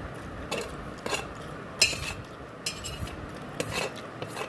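Short scrapes and clinks on a stainless steel plate as vermicelli is gathered up to eat, about six in all, the sharpest a clink near the middle.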